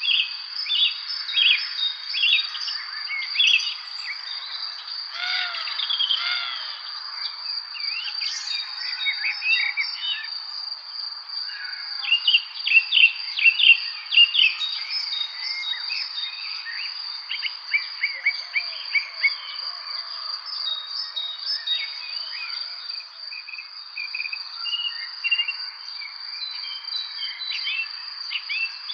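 A chorus of songbirds chirping and singing over a steady, high-pitched insect trill. The chirps come thickest and loudest about halfway through.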